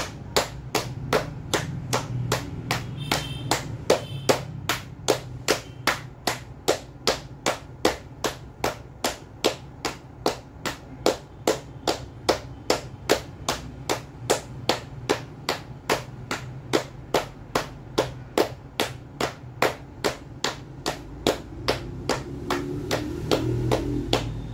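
Palms slapping the legs in a steady rhythm, about two and a half slaps a second, as a seated clapping exercise.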